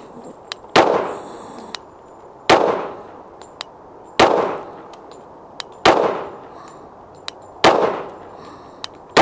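Glock 21 Gen 3 pistol firing .45 ACP in slow, evenly paced single shots: five shots about one and three-quarter seconds apart and a sixth right at the end, each trailing off with a short echo. Fainter sharp pops come between the shots.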